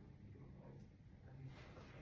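Near silence: room tone with a faint low hum, and a faint rustle near the end.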